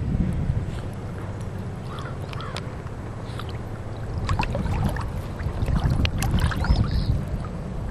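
Wind rumbling on the microphone over open water, with water lapping, and a scatter of short high chirps in the second half.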